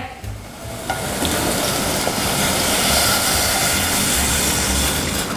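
Water poured in a steady stream from a plastic measuring jug into a stainless steel saucepan of sautéed minced chicken, starting about a second in.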